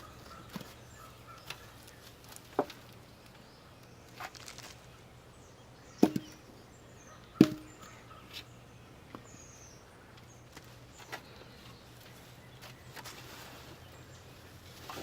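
Scattered sharp knocks and light thuds of potatoes being picked out of the dumped soil and set down, the two loudest about six and seven and a half seconds in.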